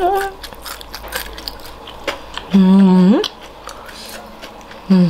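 A woman's wordless 'mmm' sounds of enjoyment while eating: one held hum ends just after the start, another low hum about halfway through slides upward in pitch, and a short one comes at the end. Small mouth clicks and smacks of chewing sound between them.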